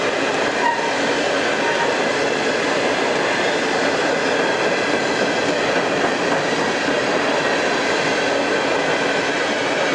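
Covered hopper cars of a long freight train rolling past, a steady rumble of steel wheels on rail.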